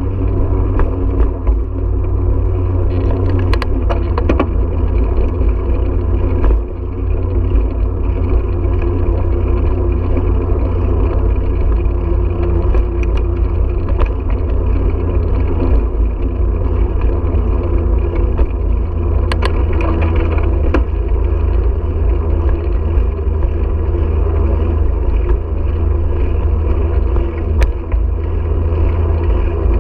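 Wind rumbling on the microphone of a bicycle-mounted GoPro, with steady tyre noise from rolling over pavement. A few sharp clicks come through, a cluster about four seconds in and another around twenty seconds.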